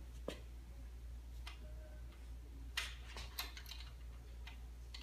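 Brake cable being twisted and threaded into a brake lever: a handful of faint, light clicks and ticks of metal on metal, over a low steady hum.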